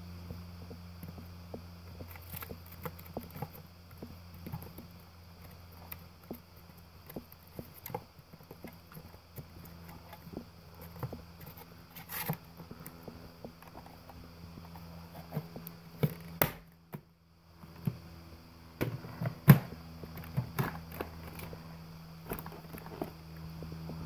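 Plastic clicks, knocks and scrapes as a Hoover WindTunnel's HEPA filter and clear dust canister are handled and fitted together, over a steady low hum.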